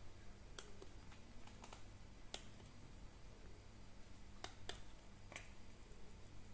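Faint, sharp clicks of buttons being pressed on a small handheld wireless remote control, about seven at irregular intervals, over a low steady hum.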